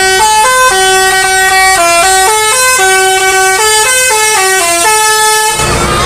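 Telolet musical air horn on the Arjuna Samba bus playing a quick melody of stepped notes, each held briefly, loud and clear. It cuts off about five and a half seconds in, leaving road and engine noise.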